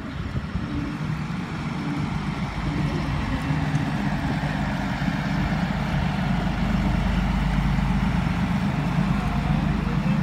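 A canal tour boat's motor running steadily, a low even hum that grows slightly louder toward the end.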